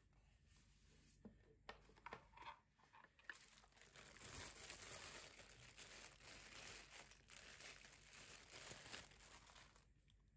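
Bubble wrap crinkling as it is pulled off a plastic part of a small appliance, after a few light handling clicks. The crinkling is dense for several seconds and stops shortly before the end.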